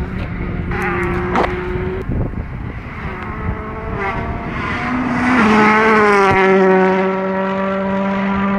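VW Polo R WRC rally car's turbocharged 1.6-litre four-cylinder engine running hard at high revs, growing loudest a little past halfway. A brief dip in pitch comes just before the loudest part. A sharp crack is heard about a second and a half in.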